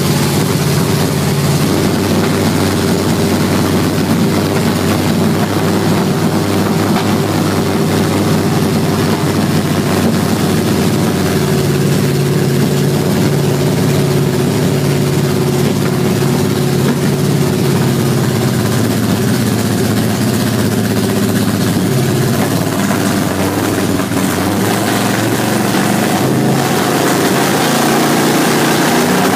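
1969 Camaro's big-block V8 with aftermarket fuel injection idling steadily with the hood open, while its injection system is being tuned with a handheld unit wired into the engine.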